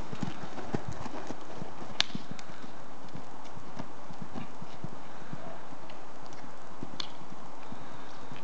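Hoofbeats of a ridden gypsy cob moving at pace over a dirt arena surface: a steady run of soft thuds. A sharp click sounds about two seconds in, and a fainter one later.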